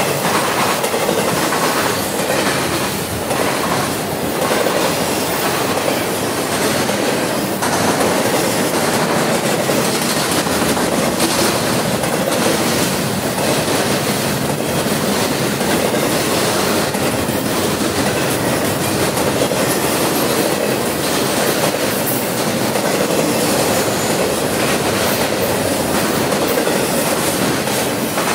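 Double-stack intermodal freight train's well cars rolling past close by: a loud, steady clatter of steel wheels on the rails.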